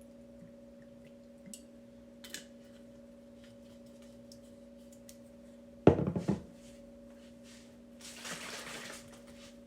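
Kitchen handling sounds while seasoning meat: a few faint clicks, then a sharp clatter of a container or utensil set down about six seconds in, followed by about a second of soft rustling noise. A steady low electrical hum runs underneath.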